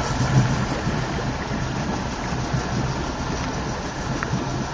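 Bayliner motorboat's engine idling in neutral: a steady low running hum.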